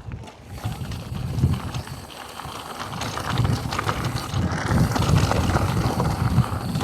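Mountain bike riding fast down a dirt jump line: tyres rumbling over the dirt with rattling and clicking from the bike, getting louder as speed builds.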